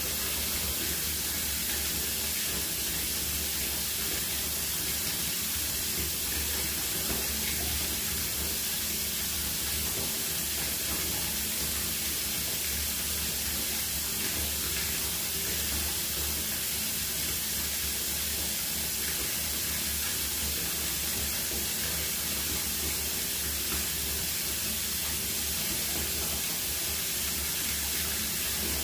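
A steady, unchanging hiss, strongest in the high treble, with a low hum underneath.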